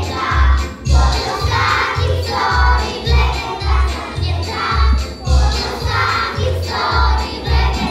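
Lively krakowiak, a Polish folk dance tune, with voices singing over a strong steady beat of about two beats a second.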